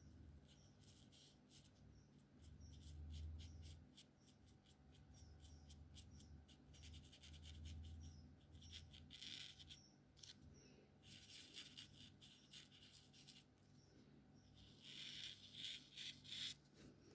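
Alcohol marker tip rubbing on paper in quick, faint strokes, many small scratchy strokes in a row, with denser flurries about nine seconds in and near the end.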